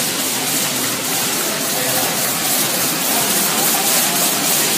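High-speed folder-gluer machine running steadily as it feeds and folds paper carton blanks for fried-chips boxes: a dense, even mechanical hiss with a fast regular pulse.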